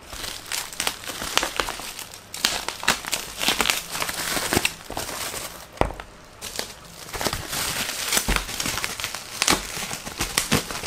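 Black plastic bubble-wrap packaging crinkling and crackling as hands handle it and pull a boxed item out of it, in dense, irregular crackles, with one short knock near the middle.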